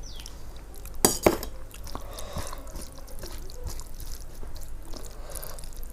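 Two sharp clinks of tableware close together about a second in, followed by softer small eating and handling sounds.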